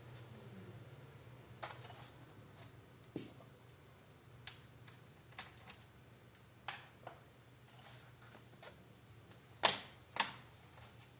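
Scattered small clicks and taps from hands working on a laptop, at irregular intervals. Two louder knocks come close together near the end, over a faint steady low hum.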